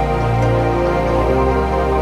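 Background music: soft new-age style music with sustained notes, the chord changing about a second in.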